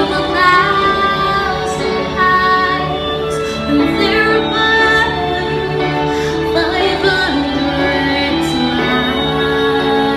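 A woman singing a gospel song with held, gliding notes over instrumental backing music.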